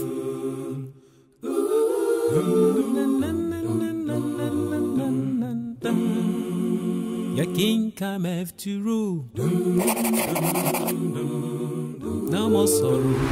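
A cappella singing: voices hold long notes and glide between them, with a short break about a second in. A brief hiss comes about ten seconds in.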